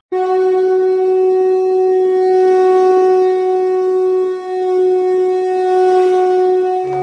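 Conch shell (shankh) blown in one long, steady note that starts abruptly and is held for about seven seconds, dipping briefly in loudness about four seconds in.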